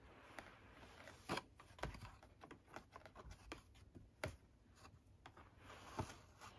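A cat's paw and claws batting and scratching at a cardboard tissue box and a wand toy: faint, irregular light taps and scratches, with four sharper knocks standing out.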